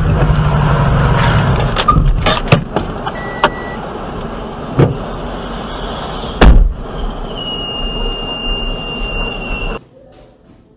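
A car running on the road, heard from inside the cabin, with a series of sharp knocks and one heavy thump about six and a half seconds in. A steady high beep follows for about two and a half seconds.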